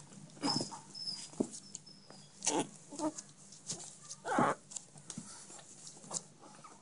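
Chihuahua puppies play-fighting: scattered short yips and squeaks mixed with the rustle and scrabble of small paws and bodies on bedding, with a louder burst about four and a half seconds in.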